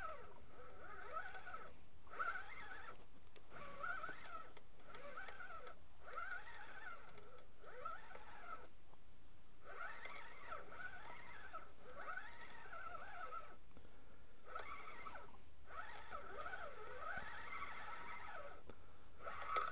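Fishing reel being cranked to bring up a hooked fish. The gear whine rises and falls with each turn of the handle, and it stops briefly twice.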